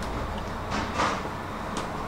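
Restaurant kitchen background: a steady low rumble, with a brief soft rush about a second in and a faint click near the end.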